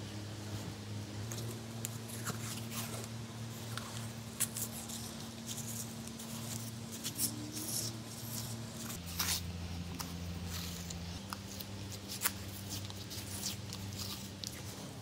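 Masking tape being pulled off its roll and pressed around a knife handle: scattered crinkles and sharp little clicks of tape and plastic. Under them runs a steady low hum that shifts in pitch a couple of times.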